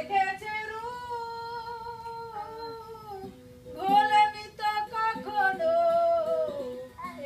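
A voice singing long, slowly gliding held notes over a steady low drone. It breaks off briefly near the middle and comes back louder.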